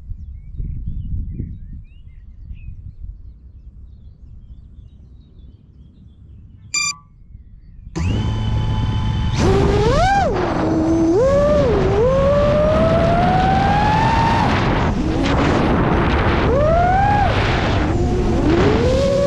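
Low rumble, then a short electronic beep about seven seconds in; about a second later the iFlight XING 2806.5 brushless motors of a 7-inch FPV quadcopter spin up with HQProp three-blade props, their whine swooping up and down with the throttle as it lifts off and flies, climbing steadily for a few seconds midway.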